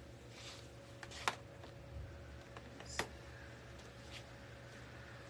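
Two sharp clicks about two seconds apart, with a few soft rustles of handling, over a faint steady hum.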